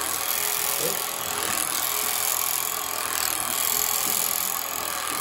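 Steady whirring noise of a small motor running without a break, with a faint voice briefly about a second in.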